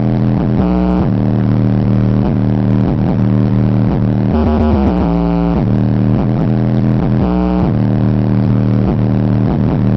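Hip-hop track with heavy, sustained bass played loud through a Kicker L7 12-inch subwoofer, with sliding bass notes about a second in, around the middle, and near the end.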